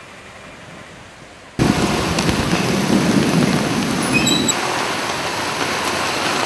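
Heavy rain pouring down. It comes in suddenly loud about a second and a half in, with a heavy low rumble for a few seconds, after a quieter start.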